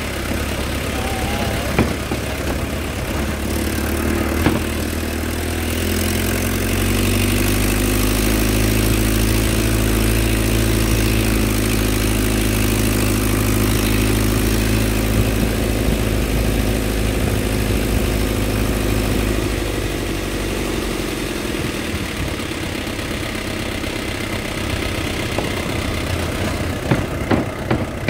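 Truck engine running as it drives along a rough dirt track. The engine note climbs a few seconds in, holds steady, and eases back later on. Knocks and rattles from the truck bouncing over bumps come through, several close together near the end.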